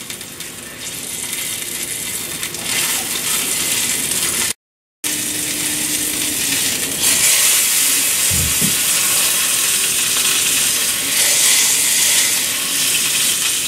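Swordfish skin searing in hot oil in a stainless steel pan: a steady frying sizzle, the skin being crisped at medium heat. The sizzle cuts out for a split second just under halfway, and a brief low thump comes about two-thirds through.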